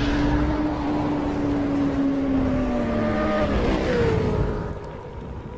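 Motorcycle engine sound effect in an animated intro, running at a high steady pitch that sags slowly, then drops sharply about three and a half seconds in and fades out.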